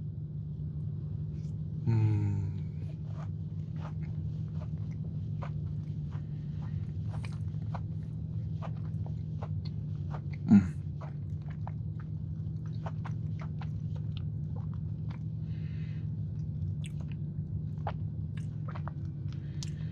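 Close-up mouth sounds of someone chewing a soft, gooey chocolate cake batter cookie: many small wet clicks and smacks, with a short voiced sound about two seconds in and a single louder thump around the middle.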